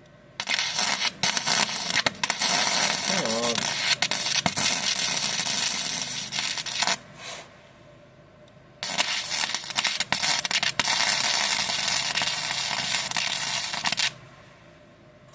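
Gasless flux-core welder arc crackling and spitting in two runs of about six and five seconds, with a short pause and a brief touch of the arc between them.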